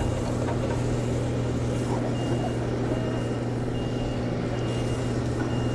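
Forklift reversing alarm beeping about once a second, over the steady low hum of an engine running.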